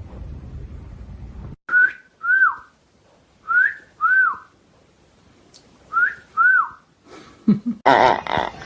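A two-note wolf whistle, a rising note then one that rises and falls, repeated three times about two seconds apart.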